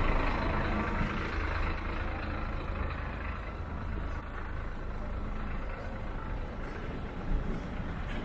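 Street ambience dominated by a steady low rumble of road traffic, with a brief louder bump about seven seconds in.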